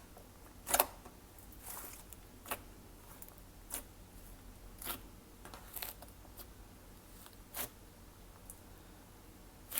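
Glossy slime being pressed and stretched by hand, giving short sharp pops and clicks at uneven spacing, about one a second.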